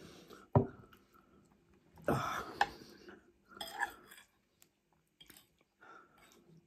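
A metal fork scraping and clinking on a ceramic plate as food is scooped up, mixed with chewing. There is a sharp knock about half a second in.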